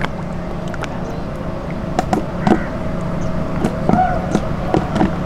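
Water splashing and dripping in short, irregular splashes as a man works in the water catching fish by hand, over a steady low hum.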